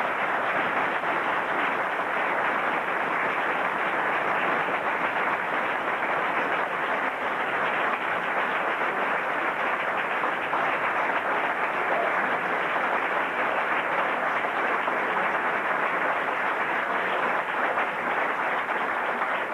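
Theatre audience applauding steadily, many hands clapping at once.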